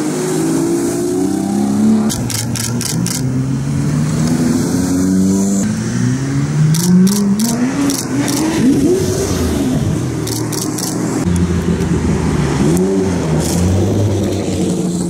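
High-performance car engines revving and accelerating, the engine note repeatedly rising and falling in pitch, with short bursts of sharp clicks.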